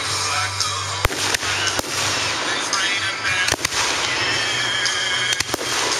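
Aerial firework shells bursting: about seven sharp bangs, several in quick pairs, over music playing underneath.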